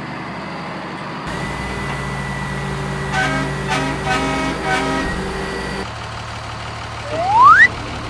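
Truck sound effects: a running engine with a steady high tone, a horn tooting three times in the middle, then a loud rising whistle near the end.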